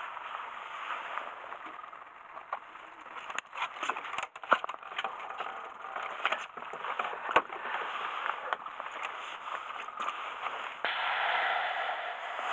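Steady hiss of wind and sea on a small boat's deck, with a run of sharp clicks and knocks in the middle, the loudest about four and a half and seven and a half seconds in, as a caught fish is handled and unhooked with fishing pliers on the deck.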